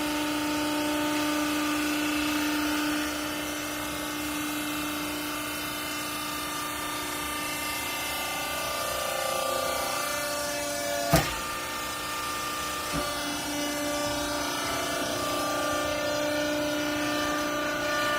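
Swivel twin-chamber clothing baler running, a steady machine hum whose pitch shifts a couple of times as the load changes. A sharp metallic clank about eleven seconds in and a lighter knock about two seconds later.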